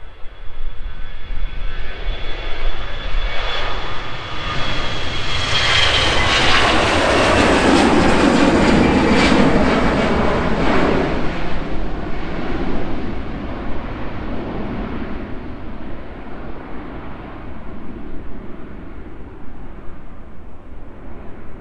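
Jet airliner taking off and climbing away: the engine noise swells over several seconds to a loud rumble with crackle and a high whine that drops slightly in pitch, then fades slowly as the aircraft climbs out.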